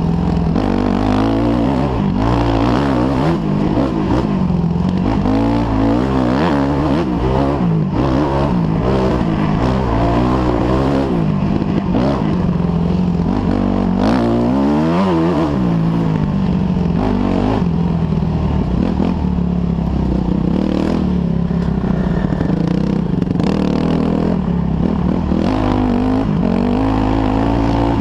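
Dirt bike engine heard from on board the racing bike, running hard and revving up and down continually as the rider works the throttle and gears, with a deep drop and climb in revs about halfway through. Chassis rattle and scraping ride along with it.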